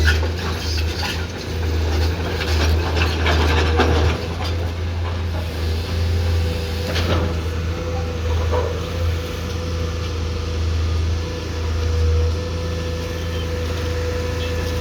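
Komatsu PC210-10M0 excavator's diesel engine running steadily at work, with a steady whine. Several metallic clanks and knocks come in the first few seconds and another about seven seconds in.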